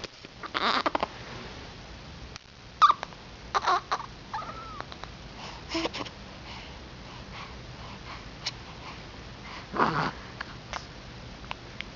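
Scattered short squeaks and snuffling noises a few seconds apart, with a louder squeal about ten seconds in.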